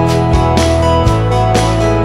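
Background music, a light guitar-led track with a steady beat of about two strokes a second.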